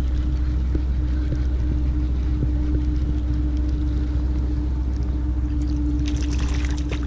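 A steady low motor hum with a constant drone, like a boat engine running on the water. A brief burst of rattling comes about six seconds in.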